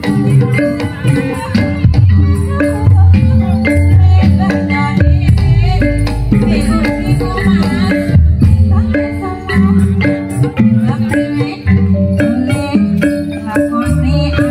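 Live ebeg accompaniment music: a Javanese gamelan-style ensemble of tuned struck percussion playing a busy run of short notes over a heavy low drum and gong beat.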